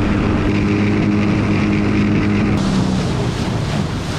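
Outboard motor on a jon boat running at speed, a steady hum under rushing wind and water noise. About two and a half seconds in, the engine hum drops back and the wind and water hiss take over.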